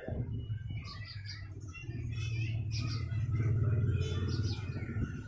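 Birds chirping in the background over a low steady hum.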